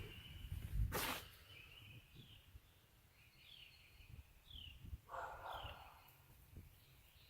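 Faint outdoor ambience: a bird repeats short, high, falling call notes about once a second, over a low rumble. A brief rustle comes about a second in and another about five seconds in.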